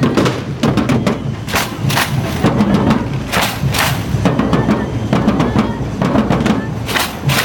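A drum band playing loudly, with sharp cracks cutting through it several times.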